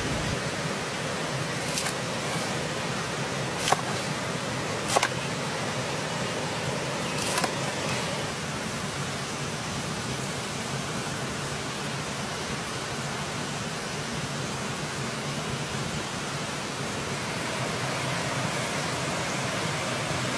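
A cleaver chopping through grilled, glazed meat onto a wooden cutting board: four sharp knocks of the blade spread over the first eight seconds, over a steady hiss.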